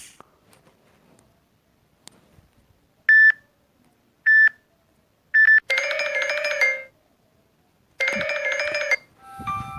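Stock smartphone notification tones played as previews: three short single beeps about a second apart, then two brief multi-note chimes, each about a second long.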